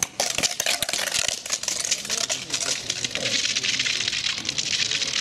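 An ice stock hitting the ice with a sharp knock, then a dense crackling, scraping hiss as it slides along the ice.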